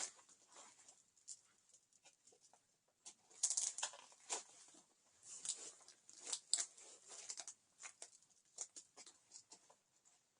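Nylon tactical vest and pouches being handled: irregular rustling and light clicking of fabric and straps, in short clusters.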